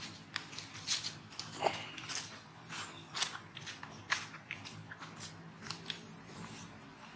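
Dry leaf litter crackling in a scattered run of short, crisp snaps and crackles as a newborn monkey stirs on the dry leaves.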